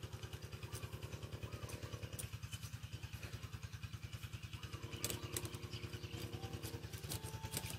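A steady low mechanical throb, pulsing about eight times a second. A few light clicks come about five seconds in and again near the end, as the plastic RC crawler chassis is handled.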